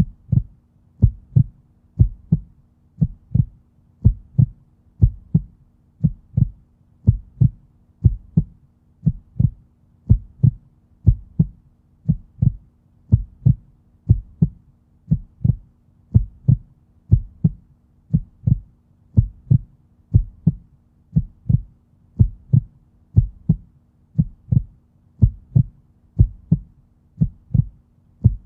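Steady heartbeat, each beat a low double thump (lub-dub), at an even pace of about one beat a second.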